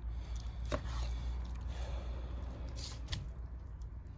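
Knife cutting a carp into steaks on a board: a few scattered taps and clicks over a low steady hum.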